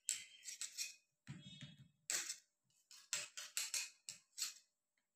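Short, irregular bursts of soft scraping and crackling from hands working a breadcrumb-coated chicken mince nugget and pressing it into shape with a knife.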